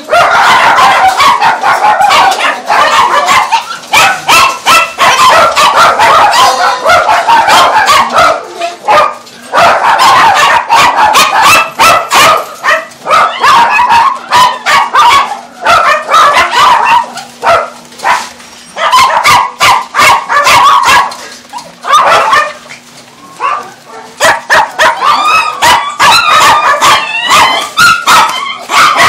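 Several caged dogs barking over one another in a loud, nearly continuous chorus, with a few brief lulls.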